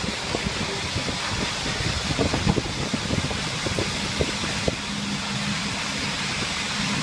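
Machinery engine running steadily on a concrete pour, with scrapes and knocks of hand tools working wet concrete. A steady low drone comes in about five seconds in.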